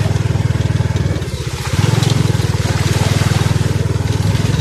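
Small vehicle engine running steadily while being ridden, easing off briefly about a second in and then picking up again.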